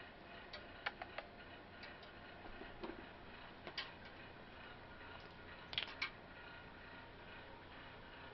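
Quiet room tone with a few small, sharp clicks and taps scattered through it, and a quick cluster of them about six seconds in.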